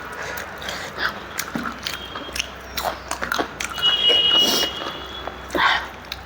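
Close-up mouth sounds of someone eating rice: irregular wet smacks and chewing clicks. A short, high whistle-like tone sounds about two-thirds of the way through.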